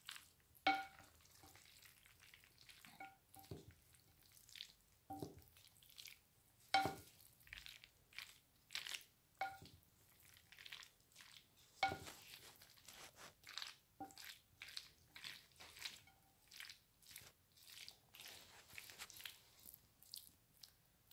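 Wooden spoon mixing mayonnaise-dressed macaroni salad in a large glass bowl: repeated wet, squishy strokes through the pasta. Several times the spoon knocks the glass, which rings briefly.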